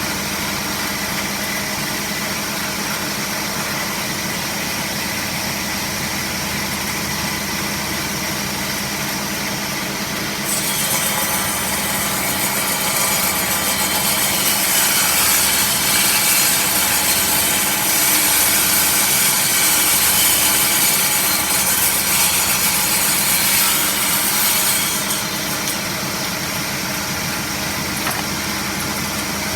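A power saw runs steadily, and from about ten seconds in it cuts through wood for about fifteen seconds, the cut adding a louder hiss over the motor, then it goes back to running free.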